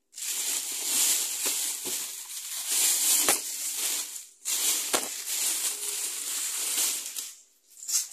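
Thin plastic shopping bag crinkling and rustling close to the microphone in long stretches, with sharp crackles and two short pauses.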